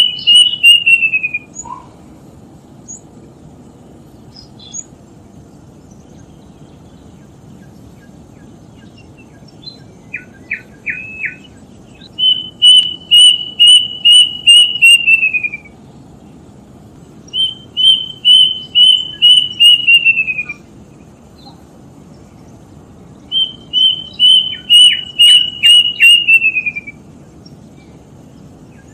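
A bird singing a repeated phrase of about ten quick whistled notes on one pitch that slide down at the end, given three times with gaps between. A short burst of three separate notes comes in the middle.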